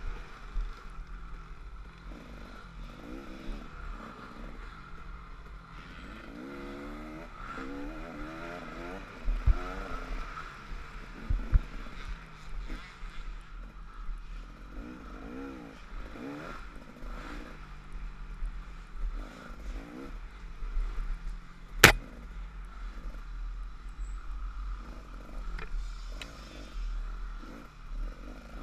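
Off-road race machine's engine revving up and down again and again as it is ridden hard over rough trail, heard from a helmet-mounted camera. Dull thumps come around 9 and 11 seconds in, and one sharp knock about 22 seconds in is the loudest sound.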